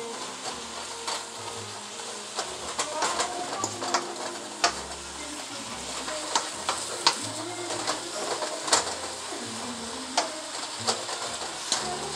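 Callaloo, smoked turkey and shrimp sizzling in a hot pan while a wooden spatula stirs them, with frequent clicks and scrapes of the spatula against the pan.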